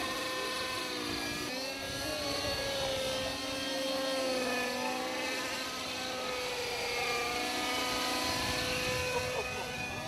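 Radio-controlled model helicopter flying: a steady whine from its motor and rotor, with the pitch drifting slowly up and down as it manoeuvres.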